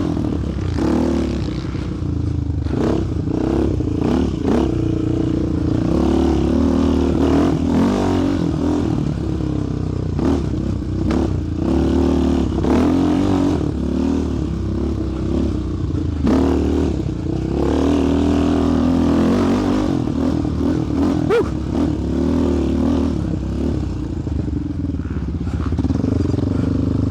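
Sport quad's single-cylinder four-stroke engine running under throttle, its revs rising and falling again and again, with scattered rattles and knocks from the machine.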